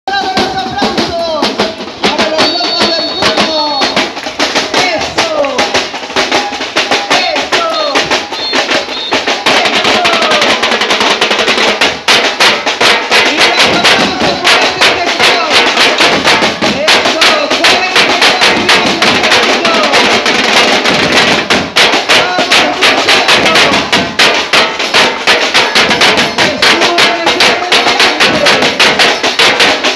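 Snare drums of a marching drum troupe beaten with sticks in a fast, dense rhythm, growing louder and fuller about nine seconds in.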